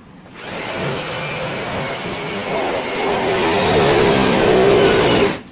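A loud machine running, a motor-driven noise that starts about half a second in, grows louder toward the end and cuts off abruptly.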